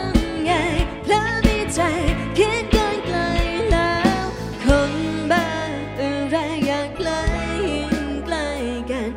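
Live band playing a Thai pop song on drum kit, bass, electric guitar and keyboard, with a wavering melody line carried over a steady beat.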